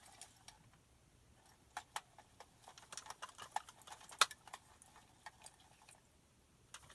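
Foley performance of a walking soldier's gear: scattered, irregular small clicks, taps and rattles, with a sharper knock about four seconds in. Some of the knocks are too strong for the wanted rattle.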